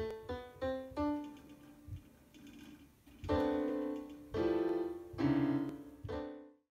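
Electronic piano notes triggered by touching sausages wired up as keys. A few quick single notes, then three fuller chords about a second apart, the last ringing on until it cuts off suddenly.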